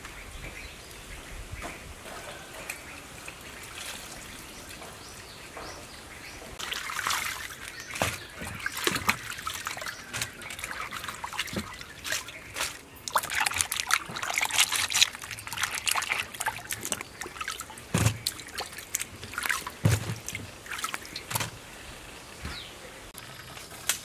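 Hands washing cabbage and lettuce leaves in a steel basin of water: irregular splashing, sloshing and trickling, quiet for the first few seconds, then busier from about six seconds in.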